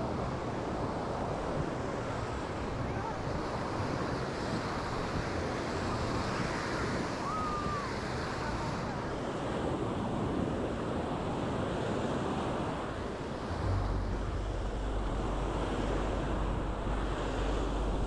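Caribbean surf breaking and washing up the beach in a steady rush. Wind buffets the microphone, and a low rumble sets in about three-quarters of the way through.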